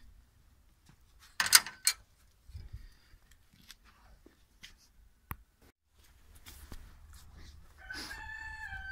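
Mostly quiet outdoor background with two sharp clicks near the start and a few faint ticks. Near the end a rooster starts crowing, one long held call.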